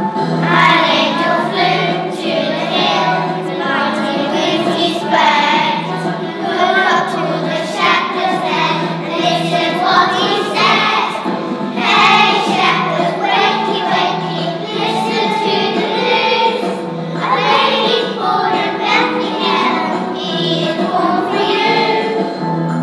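A group of young children singing a song together in unison over a musical accompaniment with a steady beat.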